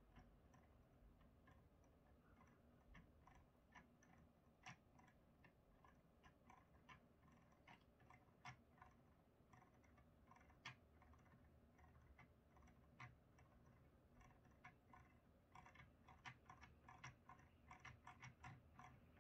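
Near silence with faint, irregular clicking of a computer mouse scroll wheel being turned, the ticks coming faster and closer together in the last few seconds.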